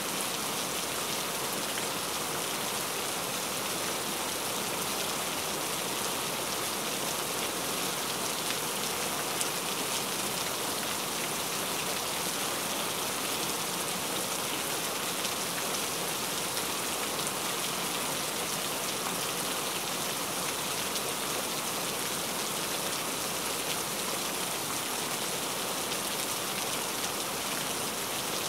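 Heavy rain falling steadily in an even hiss of drops, with no thunder.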